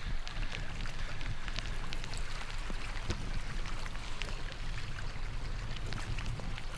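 Rain falling, with scattered sharp ticks of drops striking close by, over a steady low rumble.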